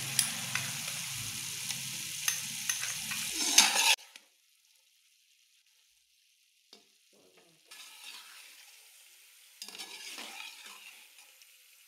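Boneless chicken frying in oil in a metal kadhai, sizzling steadily while a slotted metal spatula clicks and scrapes against the pan. The sizzle cuts off suddenly about four seconds in. Fainter stirring and scraping noises follow near the end as ginger paste is mixed in.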